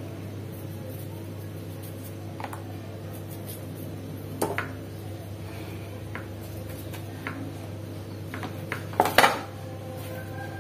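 Light clicks and taps of a kitchen knife against a plastic container while shallots are peeled and trimmed, then a louder clatter about nine seconds in as the knife is laid down in the container. A steady low hum runs underneath.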